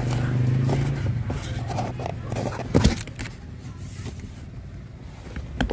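A steady motor hum that dies away about a second in, then a sharp knock and a few clicks near the end.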